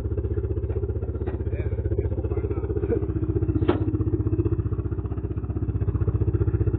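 An engine running steadily with a fast, even pulse, with one sharp knock a little past halfway.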